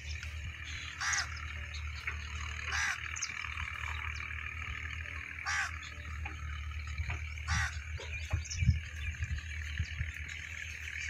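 Outdoor rural ambience: a steady high buzz under a short animal call that repeats about every two to three seconds, over a low rumble.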